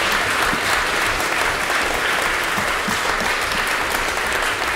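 Audience applauding steadily: the dense patter of many hands clapping at once.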